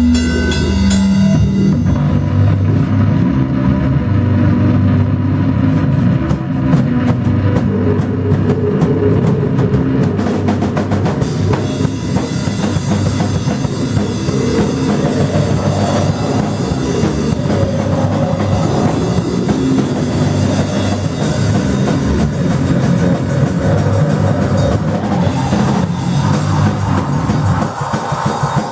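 Live rock band playing loudly, with a pounding drum kit and bass drum under distorted instruments; the sound grows brighter with cymbals from about ten seconds in.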